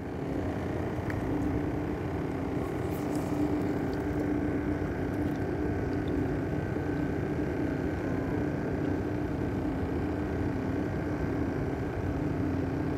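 An engine droning steadily at one even pitch.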